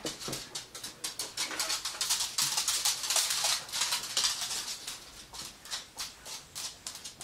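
Dogs' toenails clicking on a hard floor, a rapid, irregular patter of clicks that is densest through the middle.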